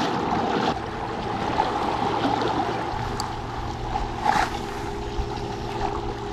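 Fishing kayak under way: water rushing and splashing along the hull, wind on the microphone, and a steady low hum from the kayak's drive. There is one brief louder splash about four seconds in.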